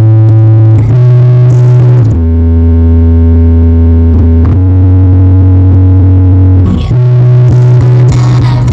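Very loud music with heavy held bass notes that change pitch every second or two under sustained chords, played through a large sound system of 24 subwoofers and 16 line-array speakers during a sound check.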